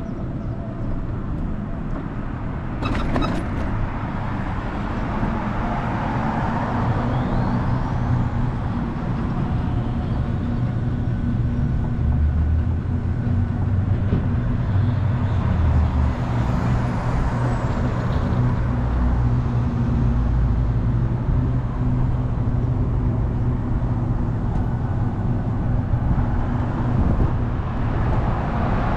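Car driving along a road: steady engine hum under tyre and road noise, growing a little louder over the first few seconds. A brief sharp click comes about three seconds in.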